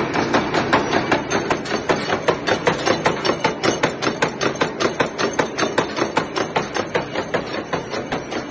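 Wire-nail making machine running at speed, its heading punch and cutters striking the wire in an even, rapid metallic clatter of about four to five strokes a second, each stroke turning out one nail.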